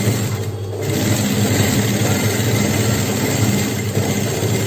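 Domestic sewing machine running steadily, stitching through several folded layers of leather fabric under a plastic presser foot made for leather. The stitching gets louder about a second in and feeds through the layers easily.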